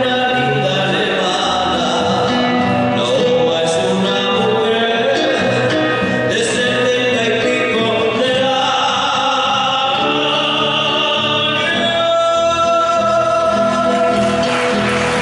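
Argentine folk music with sustained singing over instruments; applause breaks in near the end.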